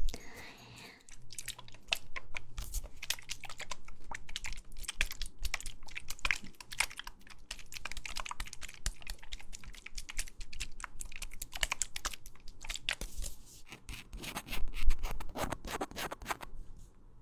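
Dense, irregular close-miked tapping and scratching, like fingers typing or working at small objects, with a louder flurry near the end.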